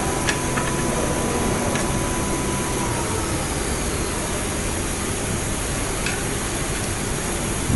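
Steady hiss and hum of room noise, with a faint high tone that fades about three seconds in. A few faint clicks of a hex wrench working the screws of the machine's metal fixture plate.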